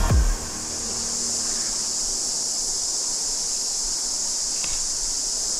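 A chorus of cicadas buzzing in a steady, high, unbroken band, over a soft wash of river water.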